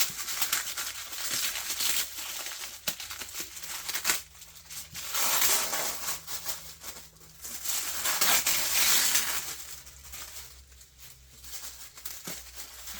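Packaging rustling and crinkling as a boxed collectible figure is handled, in uneven spells, quieter about three quarters of the way through.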